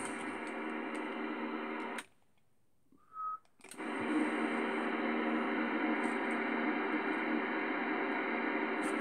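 Grundig CBH 2000 CB radio's speaker putting out steady received static with a few steady tones. About two seconds in the sound cuts off suddenly, a single short beep comes in the quiet, and the static returns about a second and a half later.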